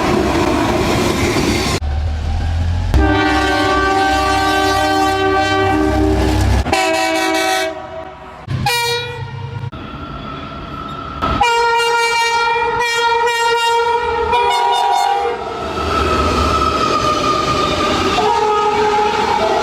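A string of train horns from different trains, cut abruptly one after another. Each horn is a held chord of several notes lasting from about a second to four seconds, with low rumble and the noise of wheels on rails between soundings.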